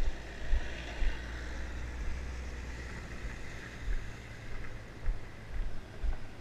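Wind buffeting the microphone of a camera on a bike riding a rough gravel track, with low thumps from the bumps. A van drives past close by, a steadier low drone through the middle.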